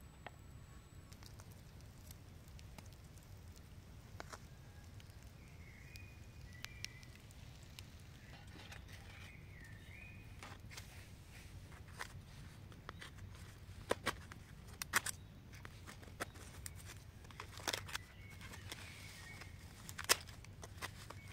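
Quiet outdoor ambience with a few short bird chirps, and scattered light taps, clicks and crinkles as a knife and an aluminium-foil packet are handled; the sharpest taps come in the second half.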